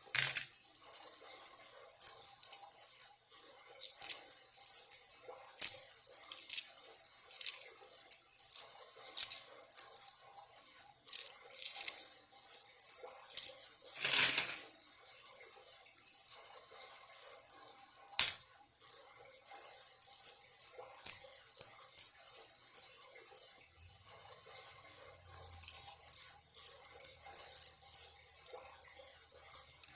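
Loose coins clinking and clacking against each other in quick, irregular clicks as change is sorted by hand, with one longer, louder rattling slide of coins about halfway through.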